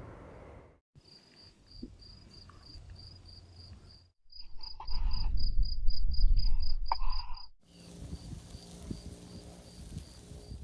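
Crickets chirping in a steady, even rhythm of about four to five high-pitched chirps a second, with a louder low rumble under them in the middle stretch and brief breaks where the sound cuts off.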